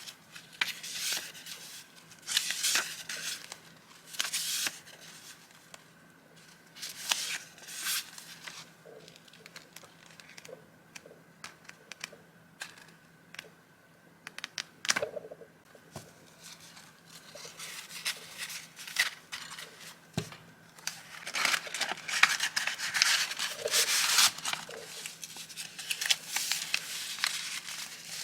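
Vintage journaling papers being handled: rustling, crinkling and sliding in short bursts. The bursts thin out in the middle and come thicker and louder for several seconds near the end.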